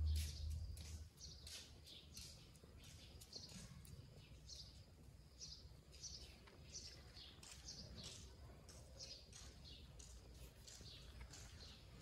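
Birds chirping, many short high calls repeating a few times a second throughout. A brief low rumble in the first second.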